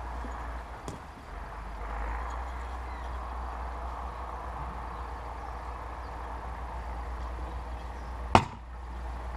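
A single sharp strike of a Cyclone 2.5 kg splitting maul into a round of firewood near the end, over a steady background hiss.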